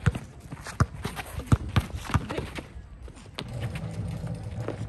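Basketball bouncing on an outdoor court: several sharp, irregular bounces during a pickup game.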